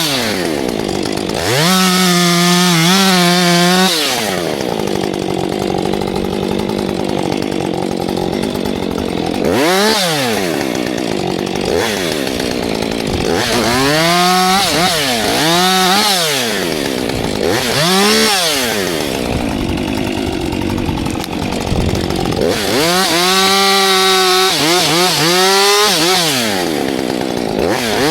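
Husqvarna 592 XP two-stroke chainsaw running hard at high revs, cutting wood, with the throttle let off and squeezed again about seven times so the engine note drops sharply and climbs back.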